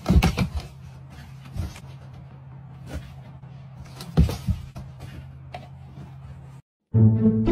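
Kitten's paws tapping and scraping on a cardboard box: a few soft taps and scratches, the loudest at the start and about four seconds in, over a steady low hum.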